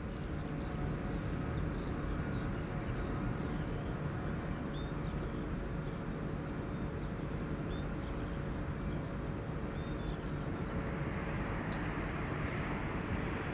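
Jet airliner engines rumbling steadily beside an airport runway, with a rushing noise swelling from about eleven seconds in as an aircraft draws nearer.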